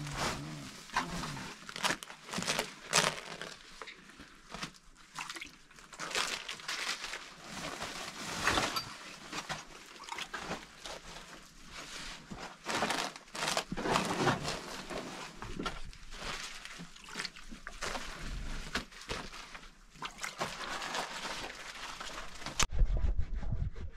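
Large, thin, dry sheets of flatbread and the plastic sheet under them crackling and rustling as they are handled, folded and stacked, in irregular crinkly bursts. The crackling stops abruptly shortly before the end, giving way to a low rumble.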